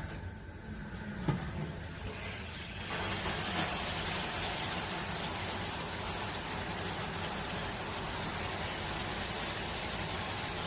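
Water spraying from a FEELSO filtered handheld shower head just turned on: a weaker flow with a click about a second in, building to a steady hiss after about three seconds.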